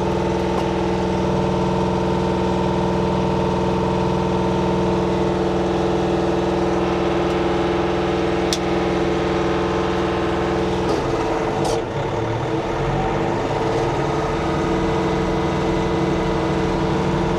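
Kioti tractor's diesel engine running steadily, its sound briefly breaking up and shifting about two-thirds of the way through before settling again, as the PTO-driven flail mower is being tested.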